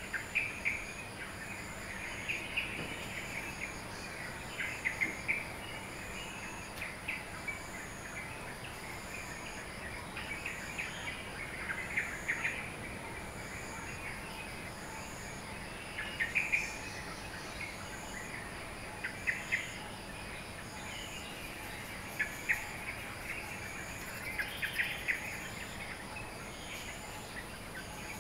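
Birds chirping in short clusters every couple of seconds over a steady high insect drone, with a regular high insect pulse about once a second.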